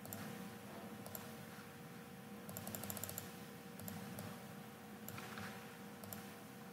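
Computer mouse clicks about once a second, with a quick run of rapid clicks about two and a half seconds in, over a faint steady hum.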